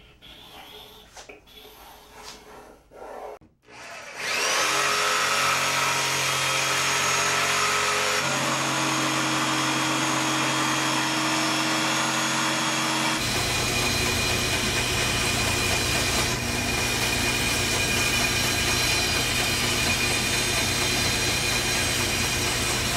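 Faint scraping and handling as a beam compass scribes a circle on MDF, then a DeWalt jigsaw starts up, rising to speed, and runs steadily as it cuts a circle out of 3/4-inch MDF. About 13 seconds in it switches abruptly to a band saw running with a steady low hum as it trims the edge of the MDF disc.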